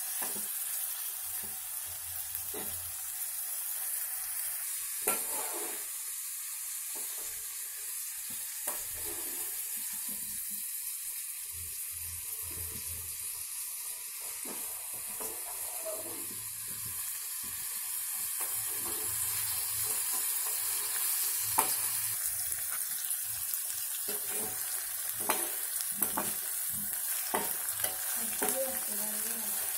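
Chopped tomatoes, carrots and onions sizzling in hot oil in an aluminium kadai while being stirred with a metal spoon, with occasional sharp taps and scrapes of the spoon against the pan.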